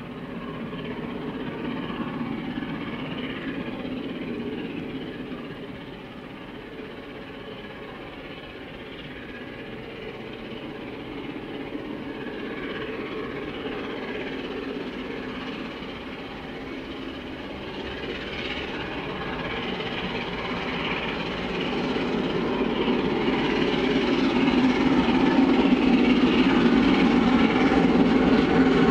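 Three-cylinder A1 Pacific steam locomotive 60163 Tornado working hard up the grade with eleven coaches, its exhaust and the rolling train heard at a distance. The sound grows steadily louder over the last several seconds.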